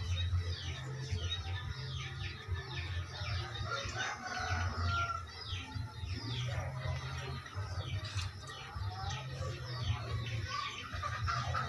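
Chickens calling: a quick, unbroken run of short, high, falling peeps, over a steady low hum.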